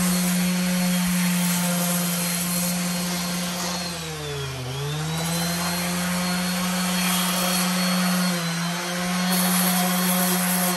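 Variable-speed electric sander running steadily against concrete, a sanding disc rubbing the surface. Its motor pitch dips and comes back up about halfway through, with a smaller dip later.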